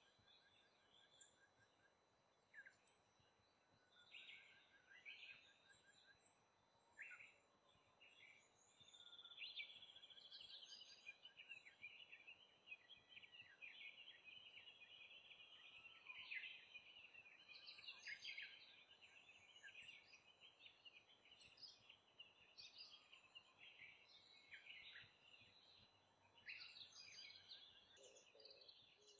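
Faint chirping and twittering of small songbirds: scattered short calls at first, then a dense run of chatter from about a third of the way in until near the end.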